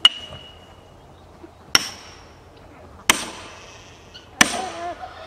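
Four sharp strikes of a heavy hammer on a felling wedge driven into the base of a tree trunk, about a second and a half apart, each with a short metallic ring.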